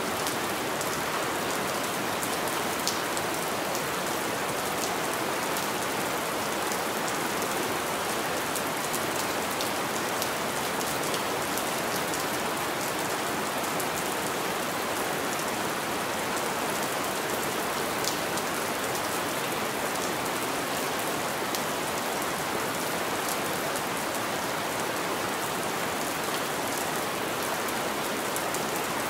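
Steady rain on window glass: an even hiss with scattered small drop ticks.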